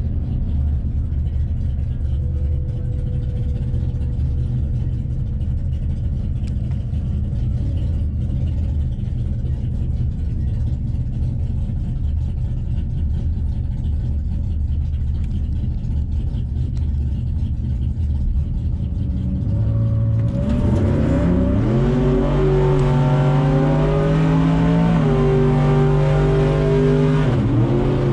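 Ford Taurus SHO's twin-turbo EcoBoost V6, heard from inside the cabin, idling with a steady low rumble while staged, then launching about twenty seconds in. The engine note climbs hard at full throttle and dips at gear changes as the car accelerates down the drag strip.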